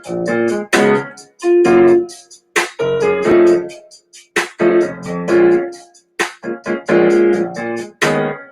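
Keyboard music: sharply struck chords in short phrases, with brief gaps between them.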